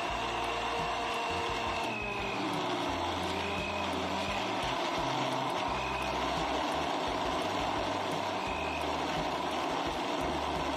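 Countertop blender running steadily, blending watermelon and ice into a watermelon smoothie.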